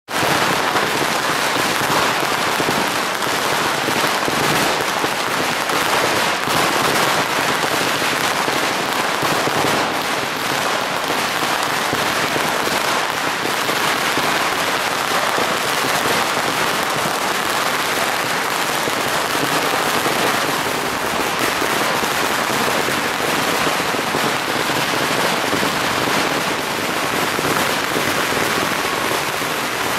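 Many long strings of Chinese firecrackers going off together: a dense, unbroken crackle of rapid small bangs, steady in level.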